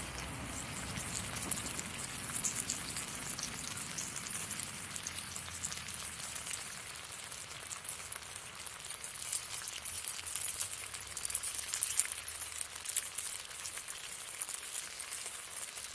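Thick-cut bacon sizzling in a frying pan over a campfire: a steady hiss full of fine pops.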